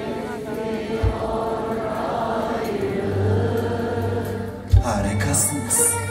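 Live band music with a male voice singing held notes, over keyboard, strings and drums, with a few low drum thumps.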